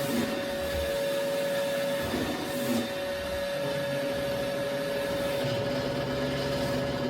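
Roomba robot vacuum running: a steady motor hum with a constant whine.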